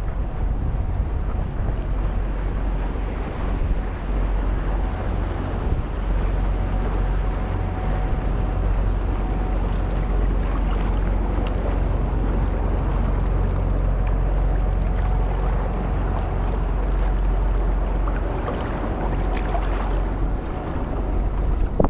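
Wind buffeting the microphone in a steady low rumble, over water washing and splashing around a sea kayak on open water.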